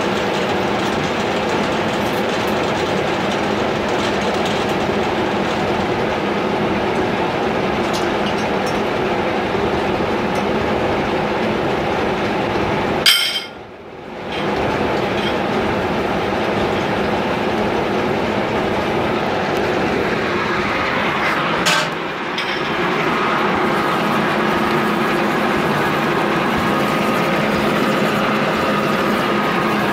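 Horizontal milling machine running with a steady mechanical drone from its gearing and drive. It drops out briefly about 13 seconds in, and from about 22 seconds in a higher steady whine joins it as the cutter works through the metal workpiece.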